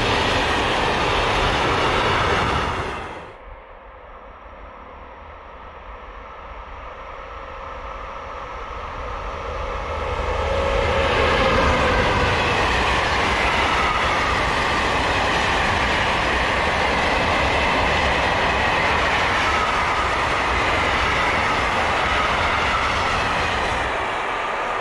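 Trains passing on a railway line. A loud train pass cuts off about three seconds in. Then another train approaches, growing louder over several seconds, and runs past steadily with high, even tones over the rumble, dropping away sharply near the end.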